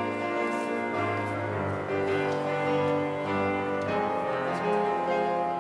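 Keyboard instrument playing a slow, sustained chordal introduction to a hymn, the chords changing about once a second.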